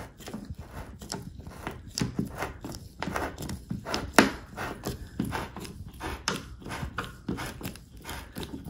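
Self-drilling plastic drywall anchor turned by hand with a screwdriver, its threads carving through the drywall: irregular scraping and clicking, with one sharper click about four seconds in.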